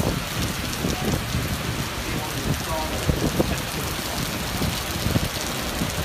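Heavy rain pouring down on a flooded street, a steady dense hiss.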